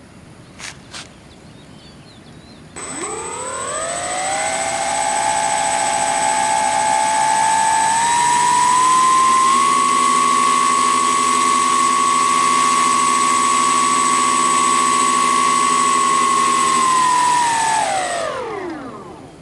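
Twin wing-mounted electric motors of a homemade RC plane spinning their propellers in a static run-up. It starts about three seconds in as a rising whine, steps up in pitch, holds steady with a thin high tone over it, then winds down near the end.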